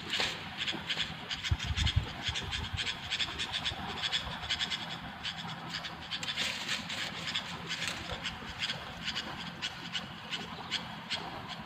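Sooty-headed bulbuls calling, a rapid run of short high chirps and chatter that keeps going, with a few low thumps about two seconds in.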